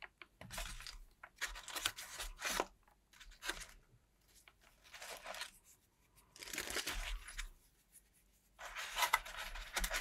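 Plastic zip-lock bag crinkling and rustling as it is handled, in several short spells with pauses between.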